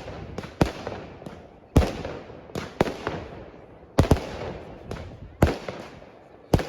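Fireworks exploding overhead: about eight sharp bangs at uneven intervals, each trailing off in a fading echo.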